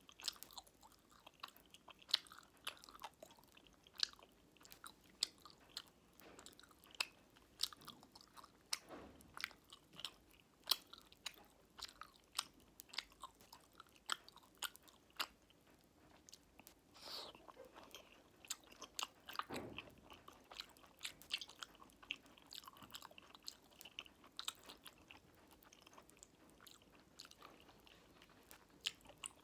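Close-miked chewing of fruit jelly with popping candy: a steady run of wet mouth clicks and small sharp crackles.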